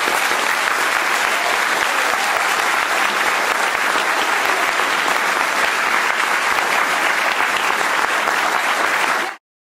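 Audience applauding steadily, cut off abruptly near the end.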